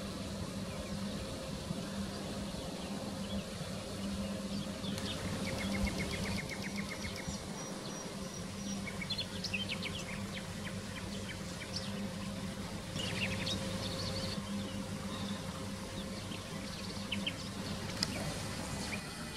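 Black-necked grebes calling: a rapid chattering trill about five seconds in, then scattered short high calls. Under the calls runs a steady low hum.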